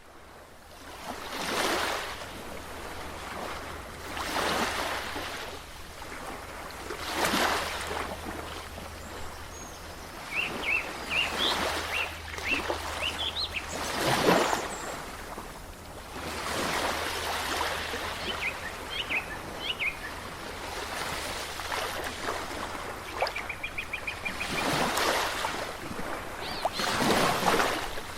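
Shore ambience: waves washing in every few seconds, with birds chirping in short bursts between them.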